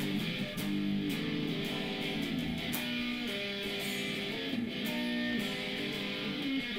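Background music played on guitar, a run of held notes that change about every half second to a second.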